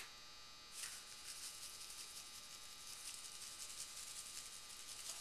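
Glass shaker of garlic salt being shaken over a raw ham: a faint, rapid hiss of fine ticks as the granules rattle out, starting about a second in.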